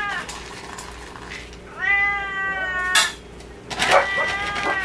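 Hungry house cat meowing loudly for food: two drawn-out meows, the first about two seconds in and the second near the end. A few sharp clicks of dry kibble dropping into a steel bowl come between them.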